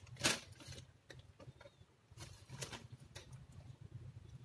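Faint, brief rustles of plastic packaging and fabric being handled as items are lifted out of an opened parcel, a few separate brushes a second or two apart.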